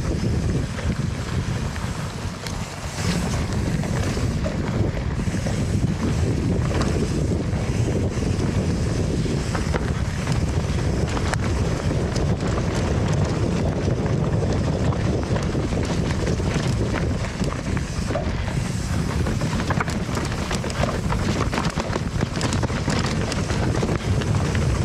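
Wind buffeting an action camera's microphone during a steel hardtail mountain bike descent over rough trail, with a steady tyre rumble and frequent clicks and rattles from the bike over rocks.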